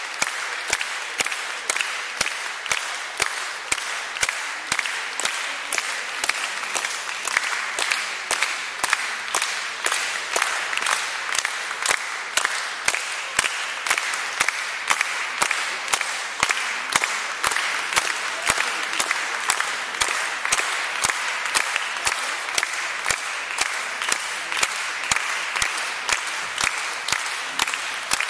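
Concert audience applauding at length, with sharp claps standing out at a steady two or three a second.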